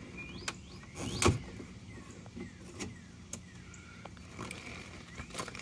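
Plastic sewer-outlet cap on a motorhome's sewer valve being twisted off by hand: a few sharp clicks and knocks, the loudest about a second in, with light scraping in between.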